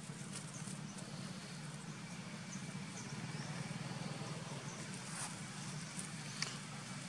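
Outdoor ambience: a steady low hum with faint, scattered light clicks and rustles, a few sharper ticks in the second half. No monkey screams.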